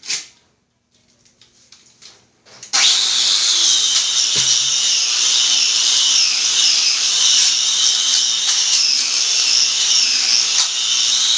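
Handheld electric power tool switched on nearly three seconds in, then running steadily with a high-pitched whine, as used for grinding or polishing marble.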